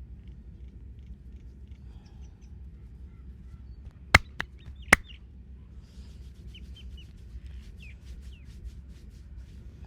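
Three sharp snapping hits from the massage in quick succession about four to five seconds in, over a low steady background noise, with faint bird chirps now and then.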